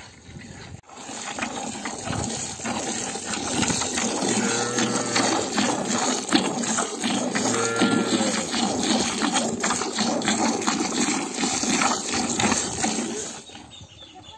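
Cattle lowing: two short moos, about four and a half and eight seconds in, over a dense mix of small clicks and rustling that starts abruptly about a second in and fades near the end.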